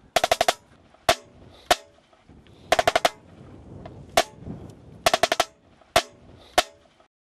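Snare drum beating a slow, solemn cadence: a quick run of five strokes followed by two single strokes, repeated three times. It is the drumming-out beat for a dismissed man.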